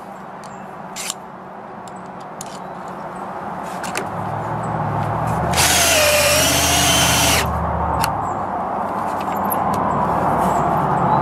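Power drill driving a screw into a deck stair tread. It starts about four seconds in and grows louder, is loudest for about two seconds in the middle with a whine that dips in pitch, then keeps running more quietly. The screw misses the framing wood behind the tread.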